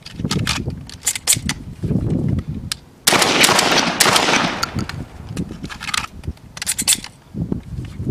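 Shotgun shells being thumbed into a shotgun's magazine tube, a run of sharp clicks, then about three seconds in a fast string of shotgun shots.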